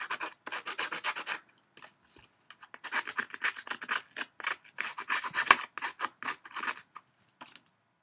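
A Prima paper distressing tool's blade scraped along the edge of patterned paper in quick, repeated short strokes, fraying and shaving the edge. Two runs of strokes, with a pause of about a second and a half between them.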